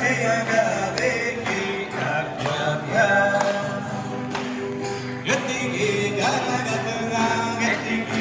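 Music with a man singing over a steady percussive beat.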